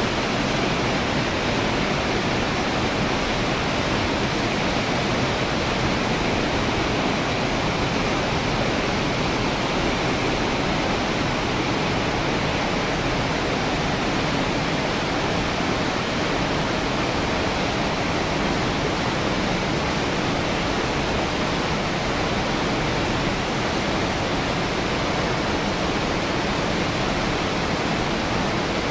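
Glacier-fed mountain torrent rushing through a narrow rock gorge, spilling from a chute into a pool and cascading over boulders: a steady, unbroken rush of white water.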